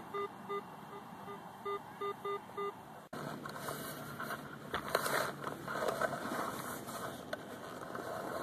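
Garrett AT Pro metal detector giving short, even beeps, about three a second, over a target reading 52–53, usually a nickel. They stop about three seconds in, and scraping takes over as a digging tool cuts into turf and soil.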